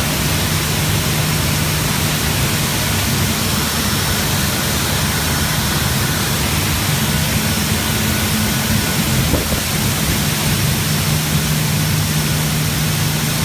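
Paper machine running at production speed, about 810 m/min, making 80 gsm paper: a loud, steady rushing noise with a constant low hum underneath.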